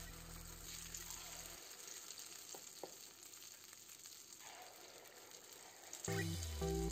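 Dosa batter sizzling as it fries in hot oil in the cavities of an unniyappam pan over a low flame, a faint even hiss. Background music plays at the start, drops out after about a second and a half, and comes back louder about six seconds in.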